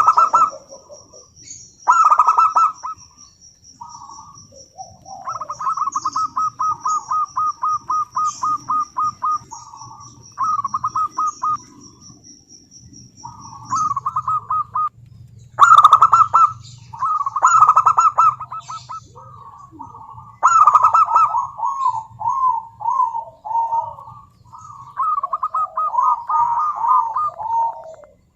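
Zebra dove (perkutut) singing: phrases of loud coos and fast rolling, stuttering trills, repeated again and again with short pauses. A thin, high, steady pulsing chirp runs beneath the first half and stops about halfway.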